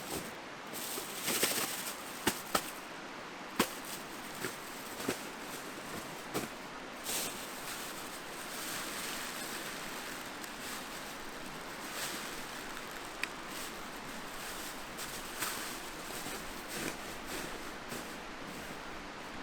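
Mountain stream flowing steadily, with scattered sharp clicks and knocks over it, most of them in the first half.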